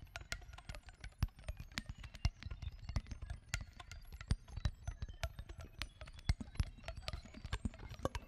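Fast, irregular clicking and ticking, several clicks a second, with no held note: percussive, non-pitched playing on an oboe with live electronics in a contemporary solo piece.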